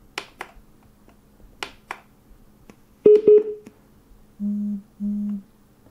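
Blitzwolf BW-SDB0 Bluetooth soundbar's mode button clicking under a finger, then an electronic tone from its speaker about three seconds in and two low beeps, half a second each, near the end as it switches into Bluetooth mode, over a faint steady hum.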